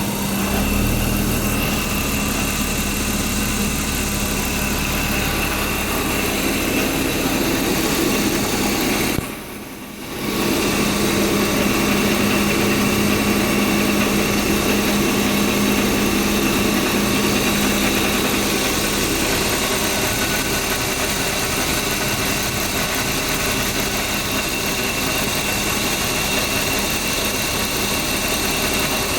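BMW E36 328iC's 2.8-litre straight-six engine idling steadily. There is a brief drop in level about nine seconds in, lasting about a second.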